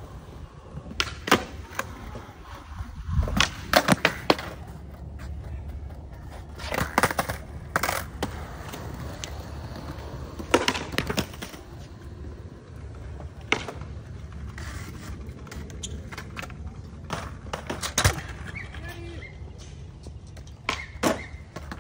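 Skateboard on concrete: a low steady rumble of wheels rolling, with sharp clacks of the board popping and landing at irregular intervals, the loudest clusters about three to four seconds in and around eighteen seconds.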